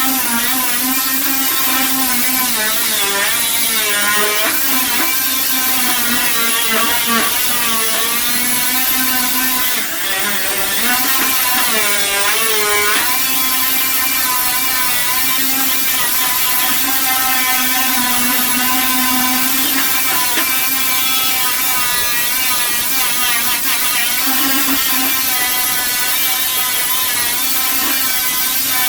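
A handheld power tool running continuously, its whine sagging and recovering in pitch again and again as it is worked against a surface.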